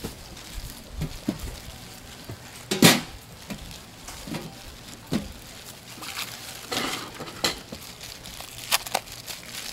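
Hand-made gimbap being assembled: plastic-gloved hands patting rice onto a laver sheet and handling cheese slices, with soft rustling and scattered small knocks on the cutting board. One sharp knock about three seconds in.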